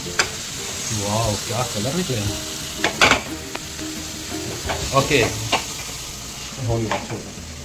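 Marinated chicken pieces sizzling in hot oil in a nonstick frying pan, with a steady hiss. A spatula clicks and scrapes against the pan a few times as the chicken is stirred.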